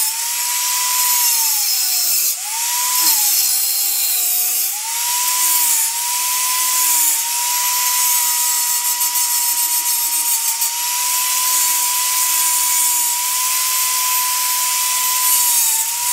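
Angle grinder cutting into a steel saw blade, to cut out a rough knife shape. The motor whines at a steady pitch over a loud hiss from the grinding. The pitch sags for a moment about three seconds in, and again briefly near the end, as the disc is pressed into the steel.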